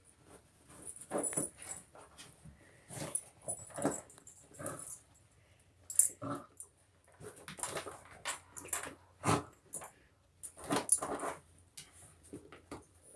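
Dog digging and nosing in the fabric layers of an iDig dig toy: irregular short bursts of fabric rustling and snuffling, with pauses between them.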